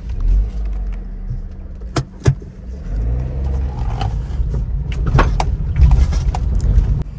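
Car engine running as the car drives up a rough track, a steady low rumble with a few sharp knocks.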